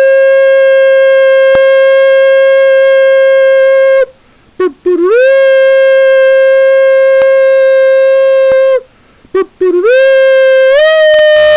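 Three long, loud, steady horn blasts like a shofar, each starting with a short wavering scoop before settling on one held note; the third steps up slightly in pitch near the end. It is a trumpet call given to reproduce the 'sound of the trumpet' heard in the spirit.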